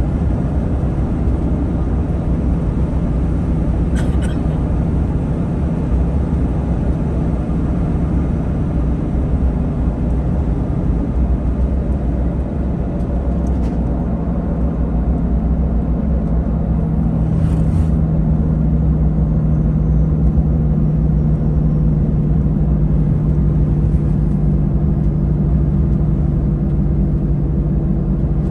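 Steady engine and tyre noise of a truck driving at road speed, heard from inside the cab as a constant low rumble. A steady hum strengthens about halfway through, and there are a few faint ticks.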